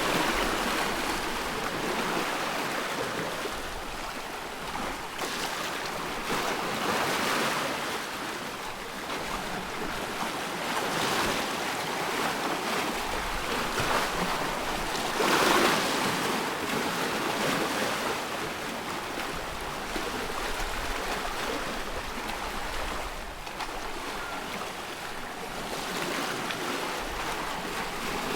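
Small waves on a loch lapping and washing in uneven surges every few seconds, the loudest about halfway through.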